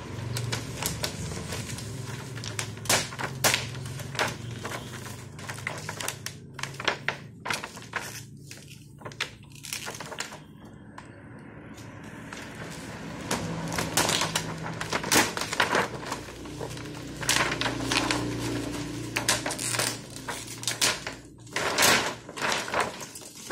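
Scattered clicks and knocks of a TV's LED backlight strips and their small plastic connectors being handled on the bench, over a steady low hum.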